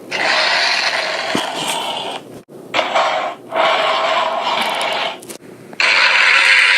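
Sound effects for an invented tiger–crocodile hybrid creature: four rough, hissing growls in a row, each cut off by a short break, the last one the loudest.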